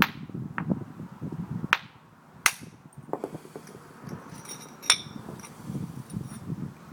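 Hammerstone striking flint in hard-hammer flaking: a handful of sharp, irregularly spaced knocks, the loudest about a second and three quarters, two and a half and five seconds in.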